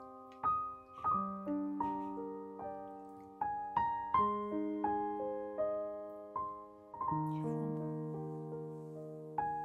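Gentle background piano music: single notes and soft chords struck about two or three times a second, each left to ring and fade.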